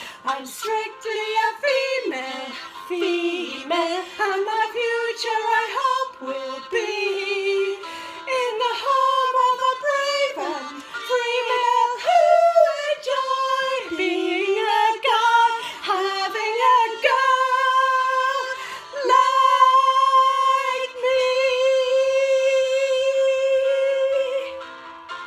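Two women singing a show tune together, loosely in tune. Near the end they hold one long final note.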